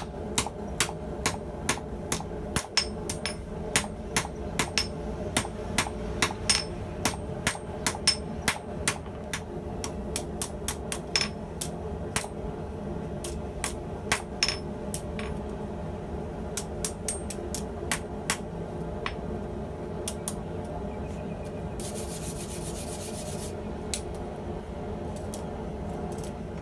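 Hammer tapping hot steel on an anvil, light quick blows about two to three a second to square up the opened loop end of a tong-style handle, thinning to scattered taps after about fifteen seconds. A steady low hum runs underneath, and a short high hiss comes near the end.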